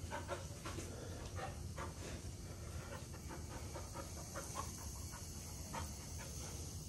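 Five-month-old Deutsch Drahthaar (German wirehaired pointer) puppy panting quietly, a run of short breaths a few a second.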